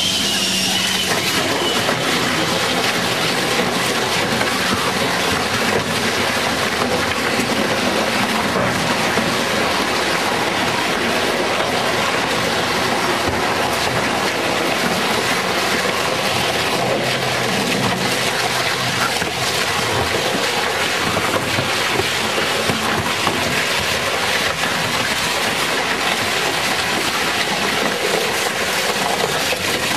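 Grupo SPR RS 140-160 twin-shaft tyre shear shredder running, its rotor knives cutting through whole tyres: a loud, steady mechanical din with a constant clatter of small cracks and snaps.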